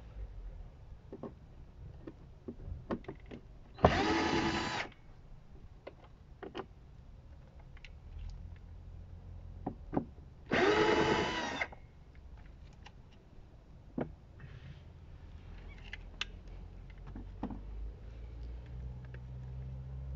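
Cordless drill-driver with a T25 Torx bit spinning in two bursts of about a second each, some six seconds apart, backing out the two T25 screws on the underside of a car door trim panel. Light clicks and handling knocks come in between.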